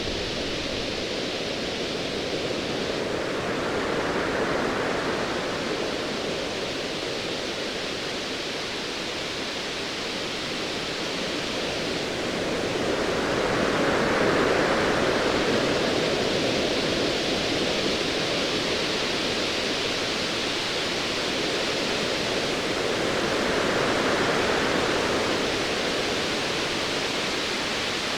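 Sea waves washing in a steady rushing hiss that swells three times, about ten seconds apart.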